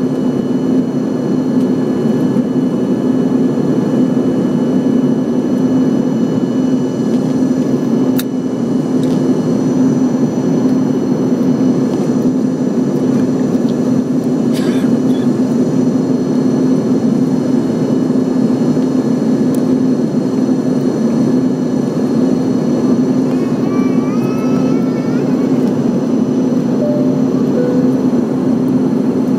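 Steady loud drone inside a jet airliner's cabin during the climb after takeoff: engine and airflow noise, with a thin, steady high whine over it.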